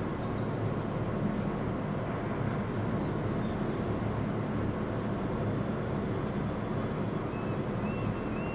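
Steady low rumble of outdoor street ambience, like distant traffic. Near the end a faint high chirp begins, repeating about twice a second.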